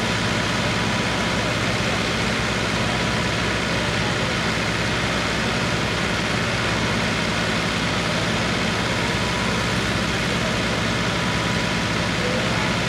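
Diesel engines of a John Deere 5310 and a Sonalika tractor running steadily while the two tractors are chained together in a tug-of-war.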